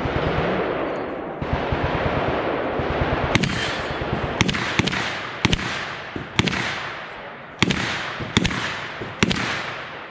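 Heavy automatic gunfire: a continuous rattle of rapid shots for about the first three seconds, then separate loud single shots, each echoing off the range.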